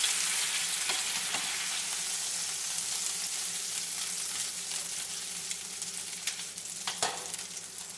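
Steak frying in butter and oil in a pan: a steady sizzle that slowly dies down, with a few light knocks.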